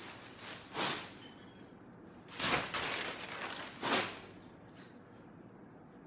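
Rustling handling noises as clothes and packages are moved about, in three short bursts: about a second in, around two and a half seconds in, and about four seconds in, then quiet room background.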